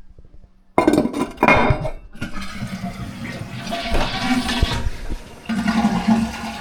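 Toilet flushing: water rushes suddenly into the bowl less than a second in and keeps running loudly as the bowl drains and refills.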